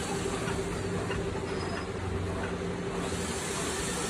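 Steady machine hum with a constant hiss and a held mid-pitched tone, unchanging throughout.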